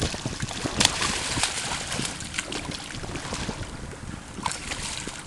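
Wind buffeting the microphone over water sloshing and splashing against a boat's hull, where a hooked fish thrashes at the surface. A few sharp knocks cut through, the loudest about a second in.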